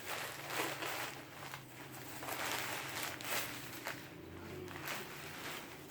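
Hands handling a package of coal: irregular rustling and scraping of the packaging, in short uneven swishes.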